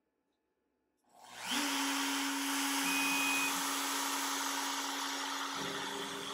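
Makita RT0701C compact router on a CNC machine switched on, spinning up quickly to full speed about a second in and then running with a steady whine. A short high tone sounds briefly about three seconds in, and a lower hum joins near the end.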